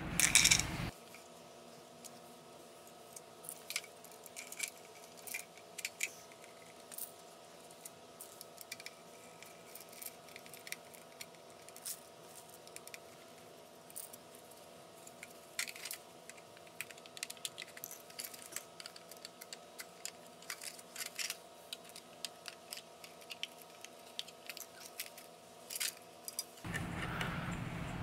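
Small scattered metallic clicks and ticks from a screwdriver and Phillips screws being worked out of a vacuum cleaner motor's metal fan housing, and from the loose screws and housing being handled.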